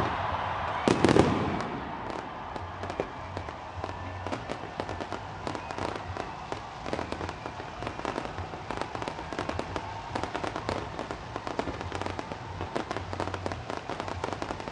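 Fireworks going off: one loud bang about a second in, then a continuous rapid crackling of many sharp pops.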